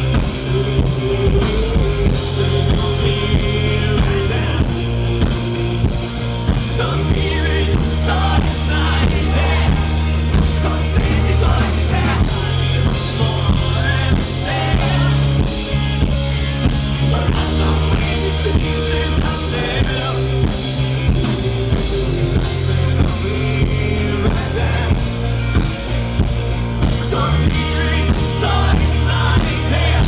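Live rock band playing on stage: electric guitars, bass guitar and drum kit with a lead singer singing over them, loud and steady throughout.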